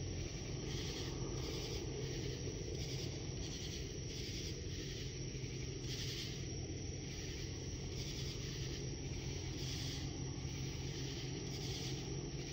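Distant Boeing AH-64E Apache helicopters giving a low, steady drone, under night insects chirping in an even pulse about once or twice a second.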